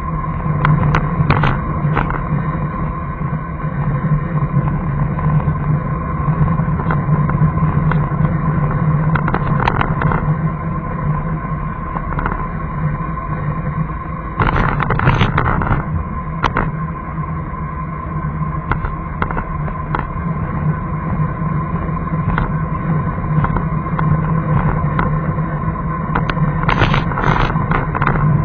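A car driving, heard from inside the cabin through a dashcam: a steady engine and road hum, with clusters of clicks and knocks about a second in, around ten seconds, in the middle, and near the end.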